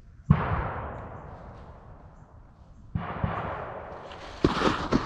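Blank gunfire: two shots about three seconds apart, the first loud and the second weaker, each followed by a long rolling echo. Near the end come footsteps and rustling of gear.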